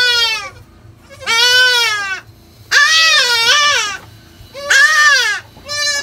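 Young goat kid bleating repeatedly: high, quavering bleats about one a second, the longest near the middle.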